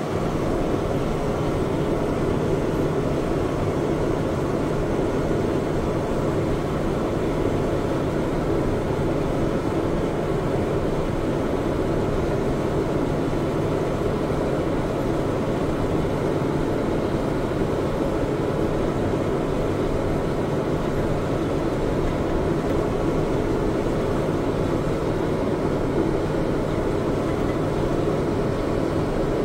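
Large farm machinery engine running steadily under load, an even drone with a constant low hum.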